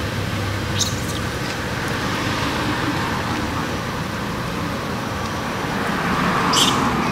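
Steady roadside traffic noise from motorbikes and other vehicles, with two brief sharp high-pitched sounds, one about a second in and one near the end.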